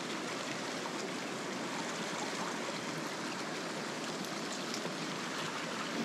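Fast mountain stream rushing over rocks in a shallow riffle, a steady unbroken wash of water.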